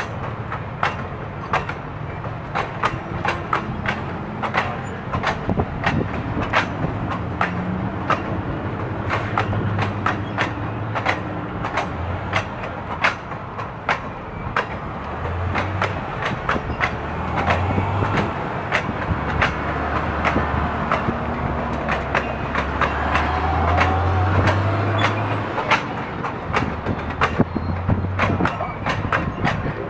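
Stainless-steel passenger cars of a circus train rolling past: a steady low rumble with many sharp wheel clicks on the rails.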